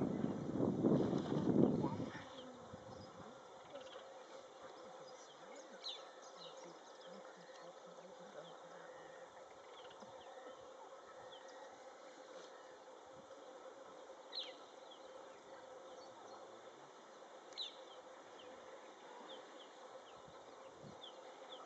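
Wind buffeting the microphone for about the first two seconds, then a faint, steady insect buzz with a few short, high chirps scattered through it.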